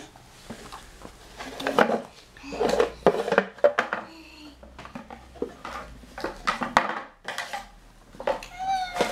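Cables and plastic plugs clattering and knocking as a small child rummages through them in a cardboard box and drags them across a terrazzo floor: a run of irregular clicks and knocks.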